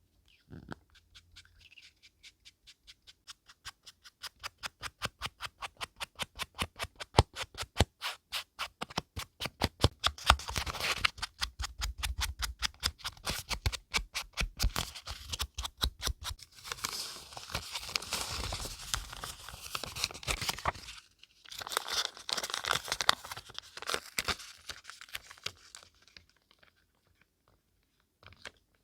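Paper and craft materials being worked by hand for a scrapbook page. First comes a rapid run of short, even scratching strokes, about four a second, growing louder. Then there is denser rustling and scraping of paper, which breaks off briefly and fades near the end.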